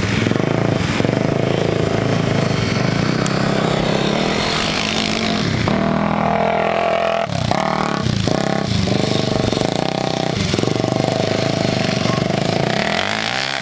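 Small off-road dirt bike and ATV engines running and revving as they ride through sand, the pitch falling and rising with the throttle.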